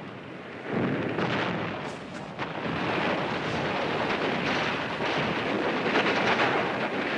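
Battle soundtrack: a continuous rumble of distant artillery and explosions, with a few sharper cracks in the first couple of seconds.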